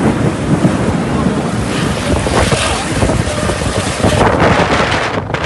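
Strong wind gusting across the microphone over a heavy downpour of rain. The hiss of the rain swells from about two seconds in until near the end.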